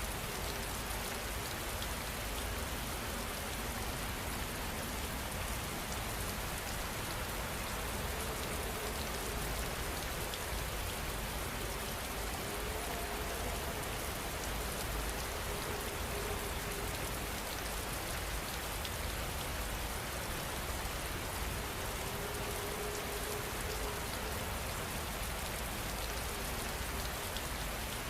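Steady heavy rain falling, a dense even hiss of countless drops pattering on surfaces, with a low rumble underneath.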